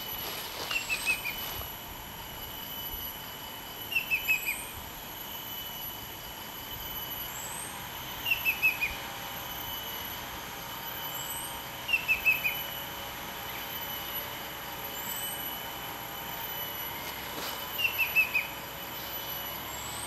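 Banded Bay Cuckoo calling: five phrases, each a quick run of about four whistled notes stepping down in pitch, repeated roughly every four seconds.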